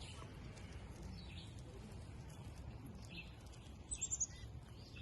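Faint chirps of small wild birds coming to a hand-feeding spot, with a quick run of four or five high notes about four seconds in.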